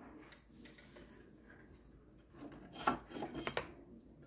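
Faint wet rubbing and scraping of hands and a sponge on a spinning pottery wheel head, wetting it around the base of a thrown pot before it is wired off. A short run of scrapes and knocks comes about three seconds in.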